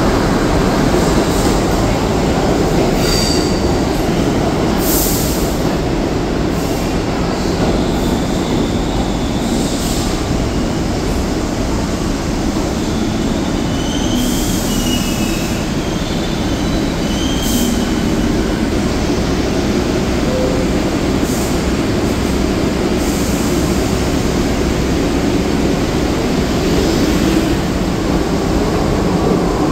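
R62A subway train rolling along a station platform: a steady, loud rumble of steel wheels on rail, with short high-pitched metallic squeals, most of them around the middle.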